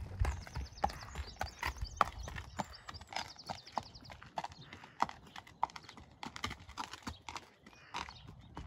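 A young sport horse's hooves striking a gravel lane at a walk, about two hoofbeats a second, with the handler's footsteps alongside.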